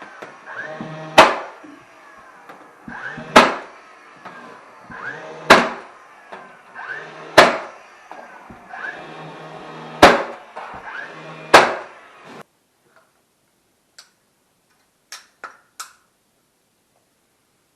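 Six loud, sharp knocks about two seconds apart over a steady background hum, cutting off suddenly, then a few faint clicks.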